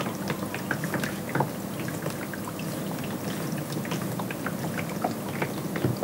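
DIY industrial ultrasonic humidifier running: water in the 12-head ultrasonic atomizer's tank making many small irregular pops over a steady low hum.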